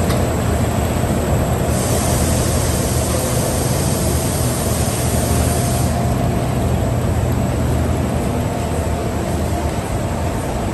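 UV coating line for parquet flooring running: a steady mechanical hum and whir from its conveyor drives and motors. A brighter hiss joins from about two seconds in and drops away about six seconds in.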